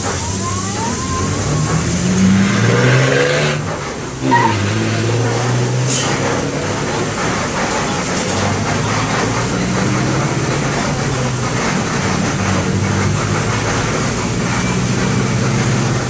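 MAN D0834 four-cylinder inline diesel of a Volkswagen 17-230 OD bus running under way, its note rising as it accelerates, dropping off briefly about four seconds in, then pulling again and running on fairly steadily.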